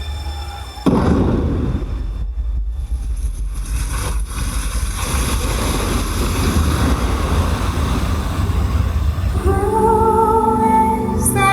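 Outdoor water-show soundtrack: a loud rushing noise with a deep rumble starts suddenly about a second in, and melodic music comes back in near the end.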